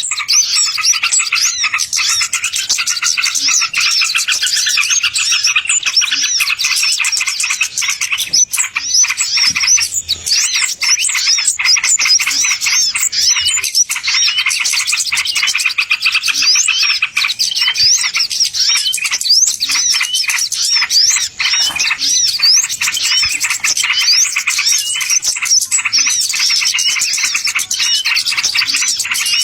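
Bird-lure recording of small songbirds chirping and twittering densely and without pause, many quick high notes overlapping.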